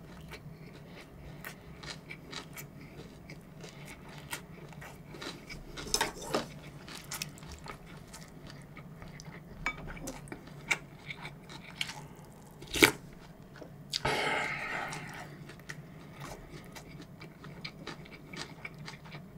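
Close-miked eating: soft chewing and small mouth clicks, then a sharp clink of a metal spoon on a bowl about 13 seconds in, followed by a short slurp of doenjang-jjigae broth from the spoon.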